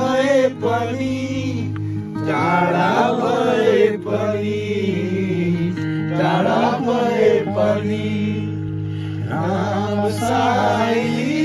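Background music: a chanted vocal melody sung in phrases of a second or two over a steady low drone.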